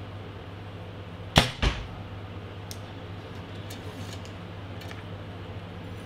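A PSE Perform X compound bow is shot: a sharp crack as the string is released, then about a quarter second later a second hit as the arrow strikes the target. A few faint clicks follow as the next arrow is handled.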